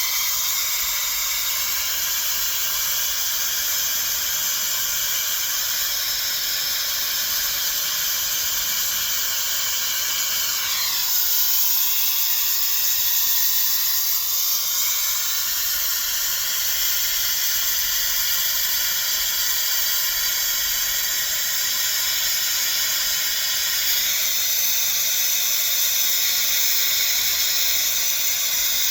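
Hair dryer blowing steadily: a high, airy hiss with a faint motor whine. The whine dips in pitch and comes back up about eleven seconds in.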